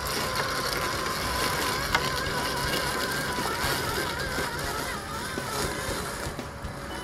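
Worx Landroid robot lawnmower moving across the lawn: its electric motors give a thin whine that wavers up and down in pitch, over a steady rustling noise.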